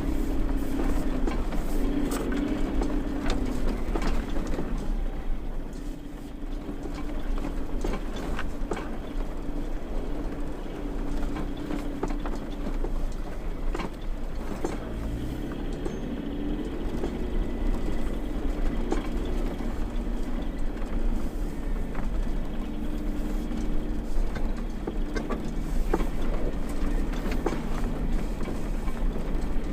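Toyota Land Cruiser 80's petrol straight-six engine running while driving, its pitch shifting with speed and rising about halfway through, with scattered knocks and rattles over the road.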